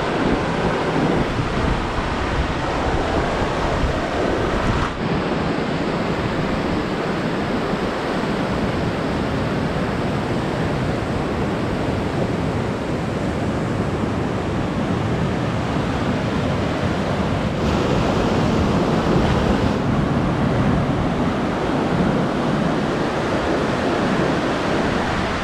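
Fast, muddy mountain river rushing over rocks: a steady, dense noise of turbulent water.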